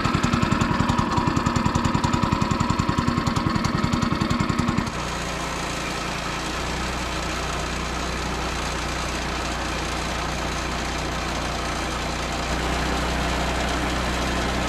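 Portable sawmill's gasoline engine running, with a loud, fast rhythmic throb that changes abruptly about five seconds in to a smoother, steadier running sound.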